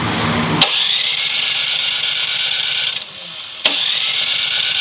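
The 208cc single-cylinder engine of a standard (non-quiet) Craftsman snow blower is pull-started and catches, then runs steadily. About three seconds in the sound drops away for roughly half a second and comes back abruptly with a click.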